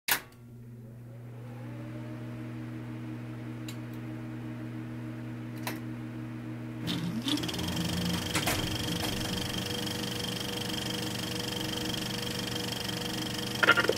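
Old film projector sound effect: a click, then the motor spinning up and running with a steady whir and hum. About seven seconds in the sound shifts and a high steady whine joins.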